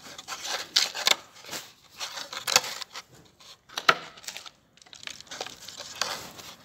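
Fingers pressing and crumbling dry, lumpy soil around a seedling's stem in a cut-down plastic container: close, irregular crunching and scraping, with a few sharper crunches.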